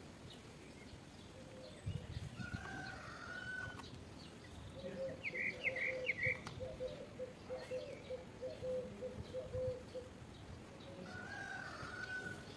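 Backyard chickens: a rooster crowing twice, about two seconds in and again near the end, with a run of clucking in between and a few short high bird chirps. Soft low knocks come about two seconds in.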